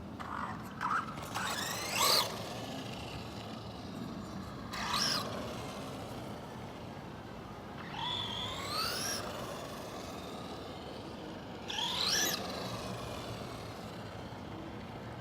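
Traxxas Rustler VXL RC stadium truck's Velineon 3500 kV four-pole brushless motor whining up in short bursts, four times, each a rising whine as the truck accelerates.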